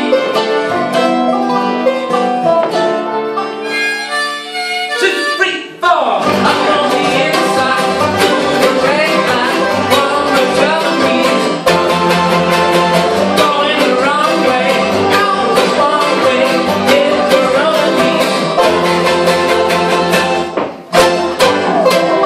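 Bluegrass band playing live on banjo, mandolin, acoustic guitar, resonator guitar, fiddle and upright bass. A lighter passage opens, and about six seconds in the full band comes in with the bass; the sound drops briefly near the end.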